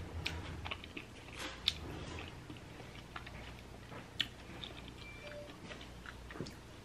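Close-miked chewing of a mouthful of burrito bowl, soft and wet, with a few sharp single clicks as a fork digs through the bowl.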